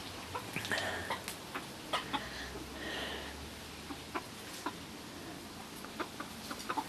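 Chickens clucking in short, scattered calls.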